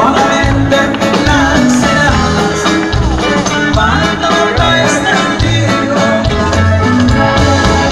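A norteño band playing loud live music with a steady beat.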